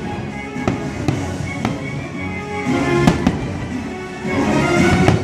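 Fireworks shells bursting with sharp bangs, about half a dozen, loudest around three seconds in and near the end, over the fireworks show's music soundtrack.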